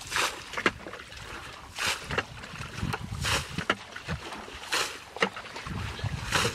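Muddy water being bailed from a ditch with a plastic bucket: five splashes of flung water, about one every second and a half, with lower sloshing as the bucket is dipped between throws.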